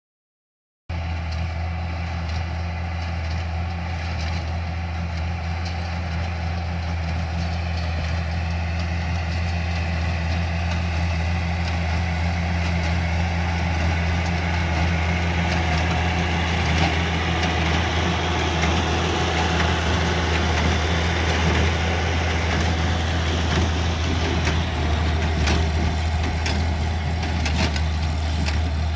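International Hydro tractor engine running steadily under load while pulling a small square baler along a hay windrow, cutting in abruptly about a second in. Short knocks from the baler show up near the end.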